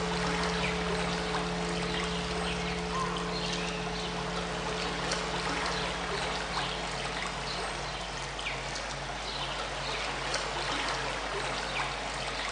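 Flowing stream water, a steady rush with many small trickling plinks, layered over steady low hum tones, one of which pulses evenly in the second half.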